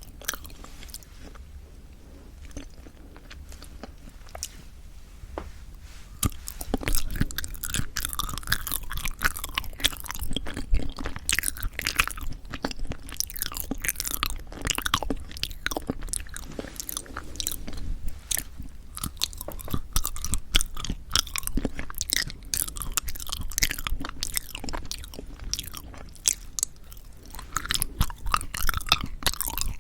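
Close-miked chewing of yanggaeng, Korean sweet red bean jelly: dense, wet, clicky mouth sounds. It is sparser for about the first six seconds, then steady and busier.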